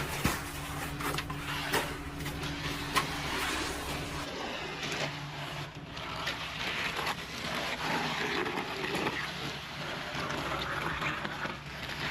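Concrete mixer truck's engine running steadily, with several sharp knocks and scraping as wet concrete is worked down the chute.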